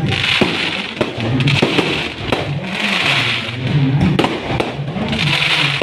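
Fireworks going off in a rapid, irregular string of sharp bangs, with three bursts of hissing crackle.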